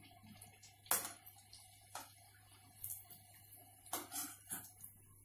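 Faint, scattered clicks and taps of a metal slotted spoon against a steel kadhai as golgappa puris fry in oil, roughly one tap a second.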